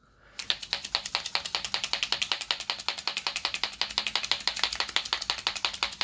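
Mixing ball rattling inside a Marvy Le Pluma white pigment paint marker as it is shaken hard, a rapid, even clicking that starts about half a second in. The marker is being shaken to get the paint flowing, because it is not coming out yet.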